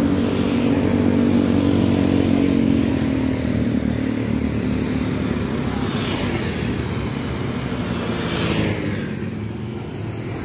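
Motor vehicle engines running steadily, with a low hum that is strongest in the first few seconds. Two brief whooshing sweeps, like vehicles passing, come about six and eight and a half seconds in.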